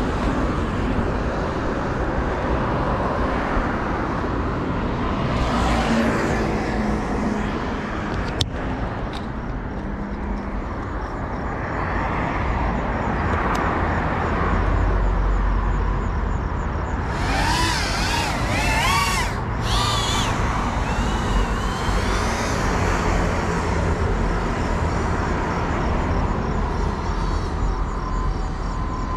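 Steady outdoor road-traffic noise. About two-thirds of the way through, a wavering wail rises and falls several times for a few seconds, and a single sharp click comes near the middle.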